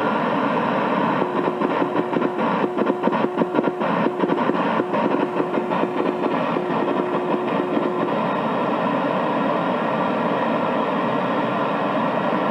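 Morse code (CW) signal heard through a shortwave receiver on the 18 MHz amateur band: a single low tone keyed in dots and dashes over steady band hiss, with some crackle. The keying stops about eight seconds in, leaving only the hiss.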